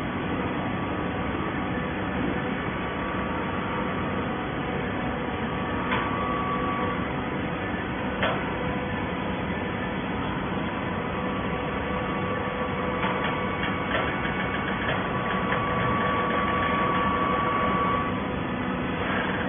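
Horizontal baler running: a steady machine hum with a whine, a few sharp knocks, and a louder whine from about two-thirds of the way in that stops shortly before the end.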